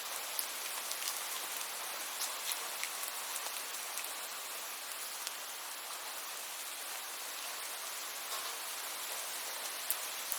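Steady rain falling: an even hiss with many sharp individual drop ticks scattered through it.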